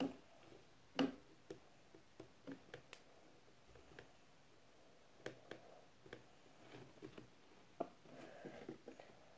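Scattered small clicks and taps of makeup containers and brushes being picked up and handled, the loudest about a second in.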